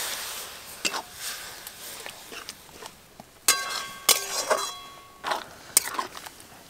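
Metal spatula stirring and scraping masala in a metal kadai, striking the pan several times. One strike about three and a half seconds in leaves a ringing clink. A fading sizzle at the start comes from the water just added to the hot pan.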